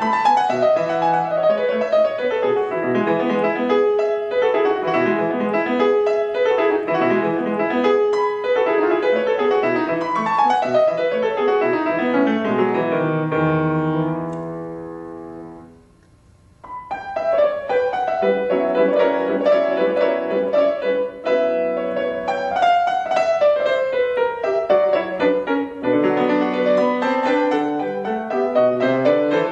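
Solo grand piano playing at a steady level. About halfway through, a descending run slows and dies away into a pause of about a second, then the playing starts again.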